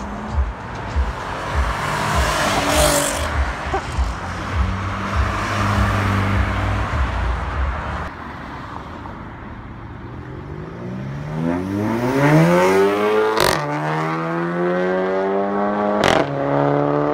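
A car pulling away under hard acceleration: the engine note climbs steadily in pitch, breaks with a sharp pop at a gear change, climbs again, and pops once more near the end. Before that, a low rhythmic engine rumble.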